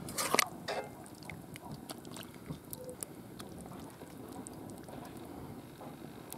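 A metal ladle knocking and scraping against a cast-iron cauldron and a glass bowl as thick stew is ladled out, with the loudest clinks about a third of a second in and smaller scattered clicks after.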